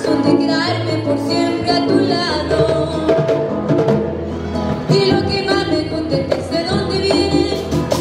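A girl singing a vallenato song live into a microphone, accompanied by acoustic guitar and a hand drum.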